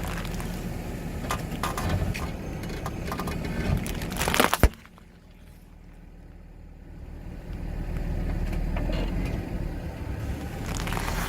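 Car engine running with a low rumble while its tyres crush objects, giving scattered cracks and crunches and one loud snap about four and a half seconds in. The sound then drops away suddenly and the engine rumble builds back up.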